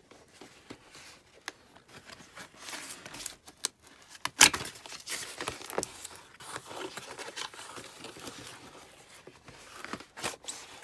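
Cardboard shipping box being torn and pried open by hand: scattered rustling, scraping and clicks of cardboard, with one sharp crack about four and a half seconds in.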